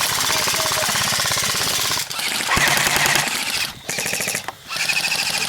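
Airsoft electric guns firing full-auto in several long bursts of rapid, evenly spaced shots, with short breaks between bursts and a motor whine under the shots.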